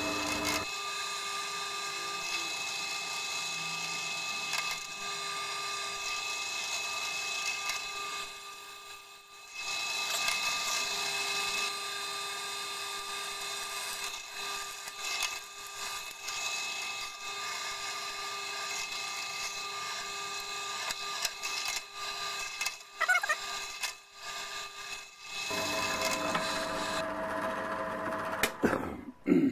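Bench drill press running with a steady motor whine while its bit cuts holes through the chuck's jaw screw bushing supports, with rough cutting noise on top. The sound dips briefly about eight or nine seconds in.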